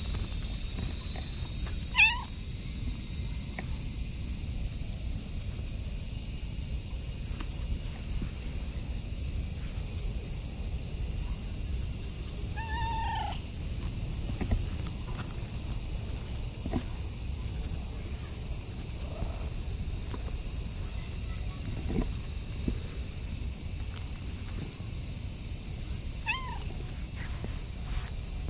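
Domestic cat meowing three times: short high meows about two seconds in and near the end, and a longer one of about a second, falling at its end, near the middle. Under them, a steady high insect buzz.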